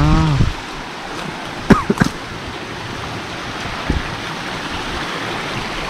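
Steady rush of flowing stream water, with two short sharp clicks close together a little under two seconds in.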